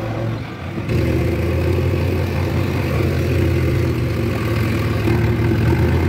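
Diesel engine of a JCB backhoe loader running close by. It is a steady, loud hum that steps up about a second in and then holds.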